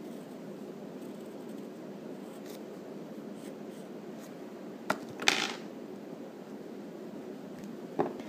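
Graphite pencil stroking and shading on paper over a clipboard: faint scratching over a steady low hum. A sharp click and a brief louder scratch come about five seconds in, and another click near the end.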